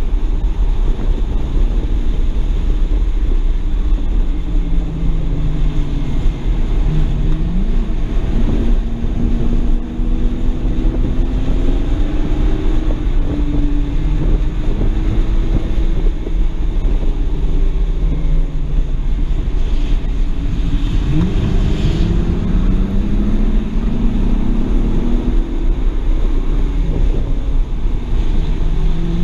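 2007 BMW 335i's N54 twin-turbo inline-six heard from inside the cabin on track, its engine note rising and falling repeatedly, with a few sharp climbs in pitch. Heavy wind and road rumble run underneath.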